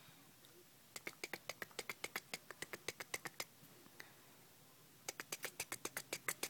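Cat licking its fur at close range: quick, rhythmic rasping strokes of the tongue, about seven or eight a second, in two runs with a pause of about a second and a half between them.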